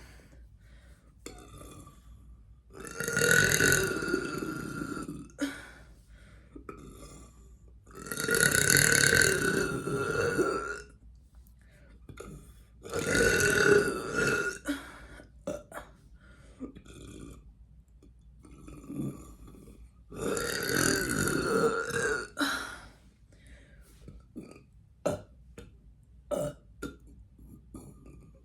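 A person belching loudly four times, long drawn-out voiced burps of about two seconds each, spaced several seconds apart, with faint clicks and mouth noises between them.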